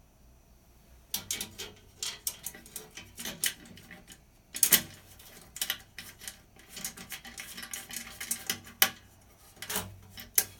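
Hand tools and metal parts clinking and clanking: irregular sharp clicks and knocks begin about a second in, with the loudest strikes a little under five seconds in and near nine seconds.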